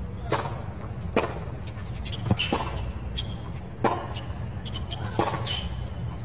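Tennis rally on a hard court: about six sharp racket strikes and ball bounces, one every second or so, with brief high shoe squeaks between them.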